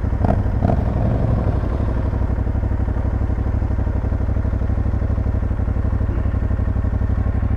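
Aprilia Tuareg 660's parallel-twin engine idling steadily, with a couple of light clattering knocks about half a second in.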